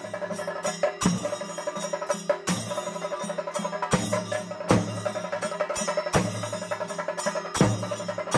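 Percussion-led music: a fast pulsing beat over steady held tones, with sharp loud strokes every second or so.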